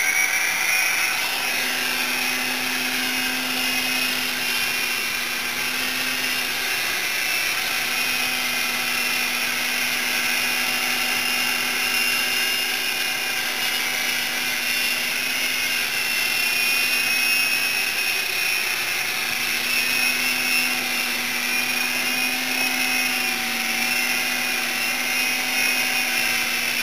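Blade mCX micro coaxial electric RC helicopter, its motors and rotors whining as it spins up and lifts off, then hovering with a steady high whine that wavers slightly in pitch as it is flown.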